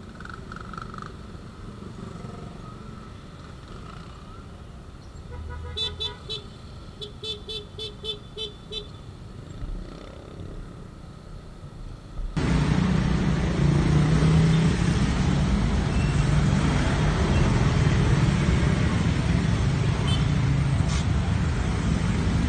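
A vehicle horn honks in a quick run of short beeps over light traffic, followed by loud, steady road-traffic noise with a low engine rumble.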